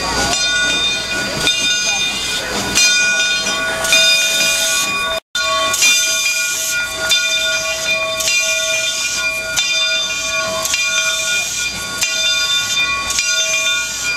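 Steam locomotive No. 401's bell ringing with a steady swing, each stroke ringing on, over the hiss of escaping steam as the engine moves slowly. The sound drops out for an instant about five seconds in.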